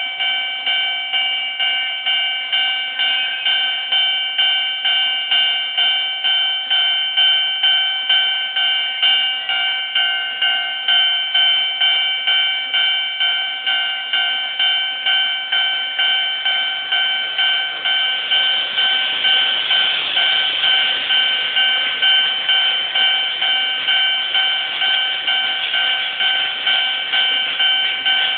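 Japanese railway level crossing warning bell ringing in a steady, rapid series of identical clangs. A hissing rush of noise joins it about two-thirds of the way in.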